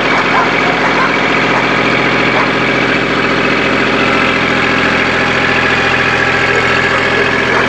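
Kubota compact tractor's diesel engine running steadily as the tractor reverses away from a log pile.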